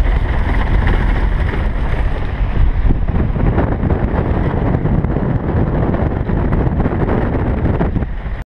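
Camper van driving on a dirt road: a steady rumble of engine and tyres with wind buffeting the microphone, cutting off abruptly near the end.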